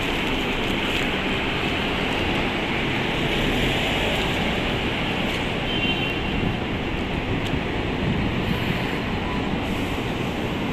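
Steady road traffic noise on a busy city street as a city bus approaches.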